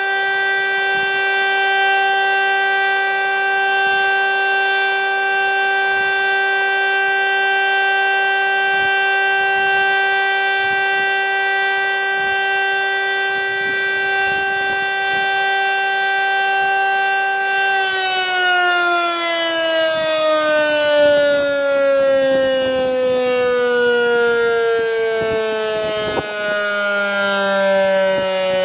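VEM DS977 electric motor siren sounding a loud steady tone for the test signal 'Zkouška sirén'. About two-thirds through, the pitch starts to fall steadily as the siren's rotor winds down.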